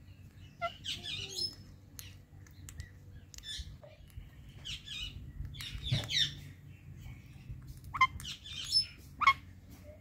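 Indian ringneck and Alexandrine parakeets chirping: a series of short, high chirps and squawks at irregular intervals, the loudest about 8 and 9 seconds in.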